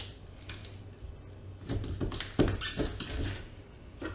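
Kitchen knife cutting through the bones of a raw whole chicken to take out the backbone: a handful of short cracks and crunches between about one and a half and three seconds in, and one more near the end.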